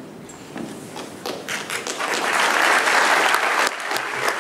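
Audience applauding, building up over the first two seconds and easing off slightly near the end.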